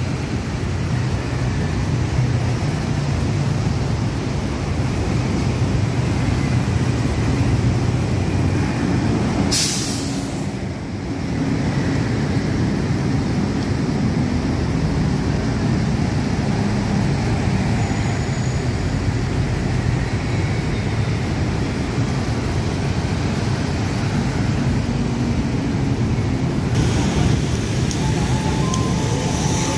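Steady road traffic: cars, motor scooters and buses passing on a multi-lane city avenue, a constant low rumble. A brief sharp hiss about ten seconds in.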